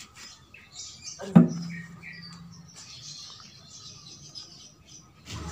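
A single sharp knock about a second in, with a brief low hum ringing after it; faint bird chirps in the background.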